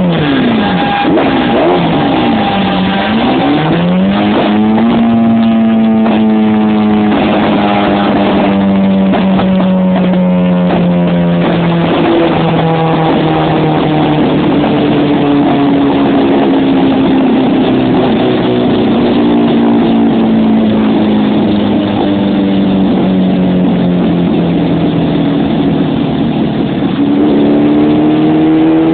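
1988 Kawasaki Ninja 750 inline-four revving on a rolling-road dyno. The throttle is blipped up and down a few times, then the revs climb sharply about four seconds in. The pitch then sinks slowly and steadily for about twenty seconds before climbing again near the end.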